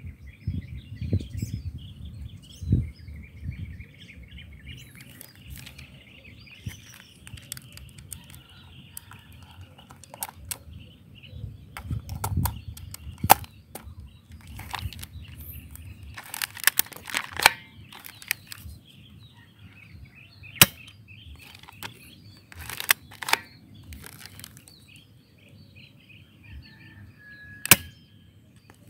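Spring airsoft rifle (Dcobra M1941 replica) firing several sharp single shots a few seconds apart, with clusters of clicks from cocking and handling between shots. Birds chirp steadily in the background.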